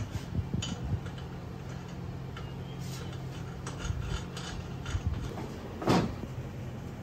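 Scattered metallic clicks and taps of hand tools working on an e-bike's brakes, with one louder knock about six seconds in, over a steady low hum.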